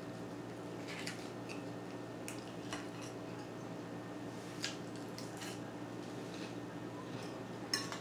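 A few light, scattered clicks of a metal fork against a salad bowl as food is picked up, over a steady low background hum.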